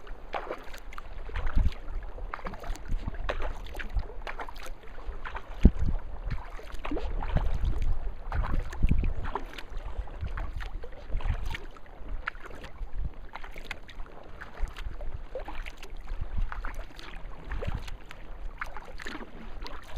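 Kayak paddling: paddle blades dipping in and out, water splashing and dripping off them in irregular strokes, with low rumbles of wind on the microphone now and then.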